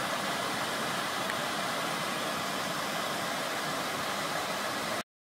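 Waterfall on the Split Rock River: a steady rush of falling water that cuts off suddenly about five seconds in.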